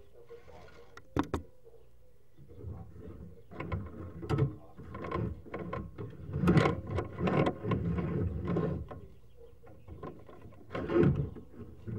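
Sewer inspection camera's push cable and camera head being shoved forward and pulled back at a pipe joint, making irregular knocks, clicks and rattles, busiest in the middle with a sharp knock about a second in and another near the end.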